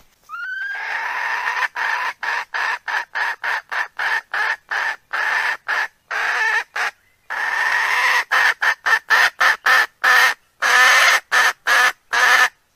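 Recorded hen call played as a lure for wild cocks. It opens with a long call rising in pitch, then runs into a fast series of short clucking notes, about two to three a second, with a few longer notes mixed in, and stops just before the end.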